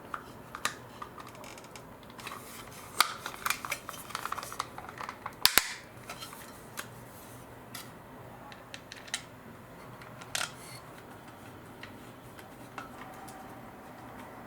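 Plastic parts of a Dyson V10 handle housing being handled and fitted together: a scatter of sharp clicks and knocks, busiest in the middle, with the loudest snap a little over five seconds in.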